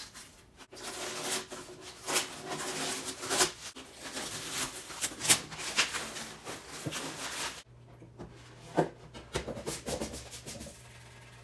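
Blue painter's tape being peeled off painted wood and crumpled, a crackling, ripping noise in long pulls. After about seven and a half seconds it gives way to a low steady hum with a few sharp knocks.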